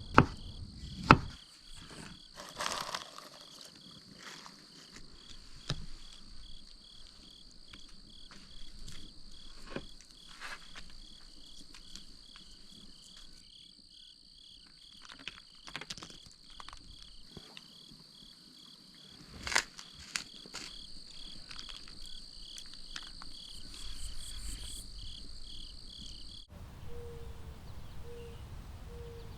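Insects chirping steadily in an evenly pulsing chorus, with a few sharp knocks, the loudest about twenty seconds in. Near the end the chirping cuts off suddenly, leaving a low rumble and three short low beeps.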